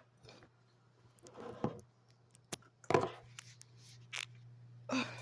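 A few sharp clicks and knocks and short rustles of things being handled and moved, over a steady low hum.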